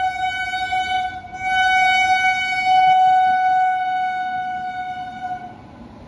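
Electric locomotive's horn sounding one long, steady blast as the train comes through, dipping briefly about a second in and cutting off near the end, leaving the rumble of the passing train.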